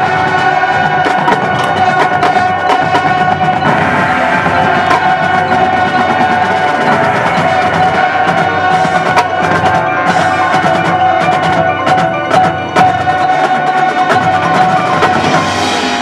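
High school marching band playing a loud ensemble passage: the winds hold a sustained note while the percussion plays many sharp, rapid strikes over it.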